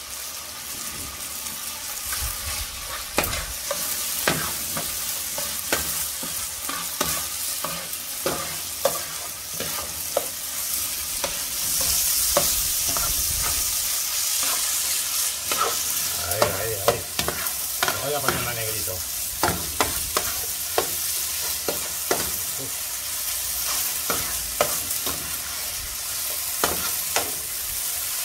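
Rice, squid and squid ink frying in a steel paella pan over a wood fire, a steady sizzle with a spatula scraping and tapping the pan again and again as it is stirred. The sizzle grows louder for a few seconds near the middle.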